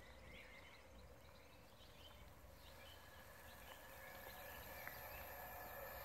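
Faint scattered bird chirps over quiet outdoor background, with a faint steady hum and hiss slowly growing louder in the second half: a distant train approaching.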